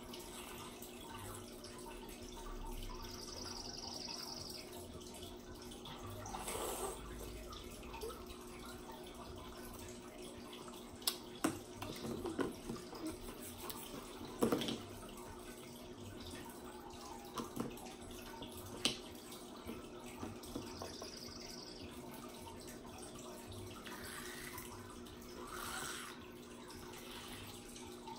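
Quiet room tone: a steady low hum with faint hiss, broken by a few short, sharp clicks and knocks, the loudest about eleven, fourteen and a half and nineteen seconds in.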